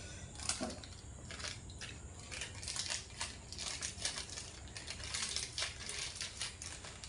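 Dry, irregular crinkling and crackling as a small food item is peeled and unwrapped in the hands. The crackles grow denser from about two seconds in.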